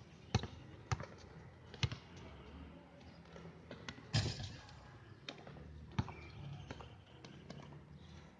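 Basketball dribbled on an outdoor concrete court: a few sharp bounces in the first two seconds, then lighter scattered taps of shoes and ball. There is a louder knock just after four seconds and another bounce about six seconds in.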